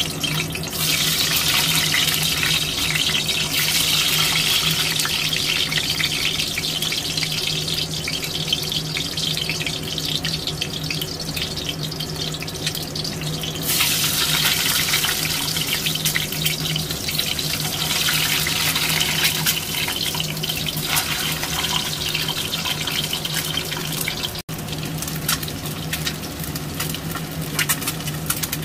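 Peeled hard-boiled eggs frying in hot oil in a wok: a steady sizzle with fine crackling pops, over a low steady hum. The sizzle changes abruptly about halfway through and again near the end.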